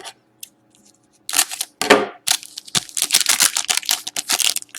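Foil wrapper of a hockey card pack crinkling and cards clicking as they are handled, a dense run of crackles that starts about a second in.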